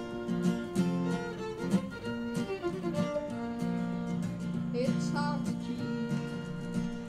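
Acoustic guitar strumming under a fiddle playing a bluegrass melody, with no singing.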